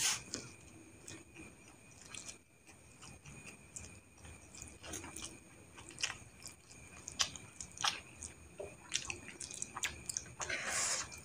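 A person slurping and chewing fried instant noodles: scattered short wet smacks and clicks of the mouth, with a longer, louder slurping sound near the end.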